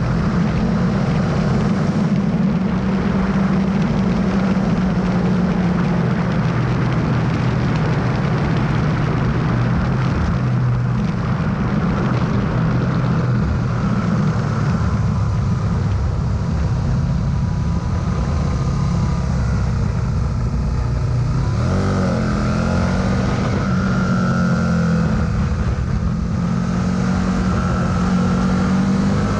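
Twin-cylinder motorcycle engine running at track speed, heard from an onboard camera with wind rushing over it. The engine note sags as the bike slows, then climbs sharply about two-thirds of the way through as the revs rise.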